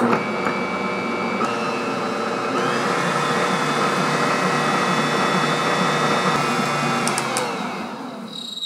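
Bosch stand mixer's motor running steadily as it mixes pretzel dough with the flour just added. It starts suddenly, then winds down and stops near the end.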